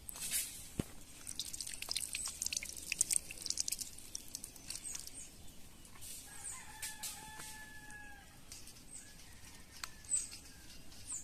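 A rooster crows once in the background about six seconds in, a single held call of about a second and a half. Scattered sharp, high ticks and chirps sound around it, loudest in the first few seconds.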